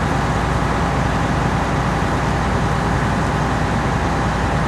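Loud, steady rumble and hiss of heavy engines running, with a low hum underneath, as from fire apparatus idling and pumping.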